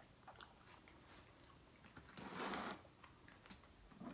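Quiet eating sounds: faint clicks from chewing and from a fork working in a takeout bowl, with one short rustling hiss a little over two seconds in.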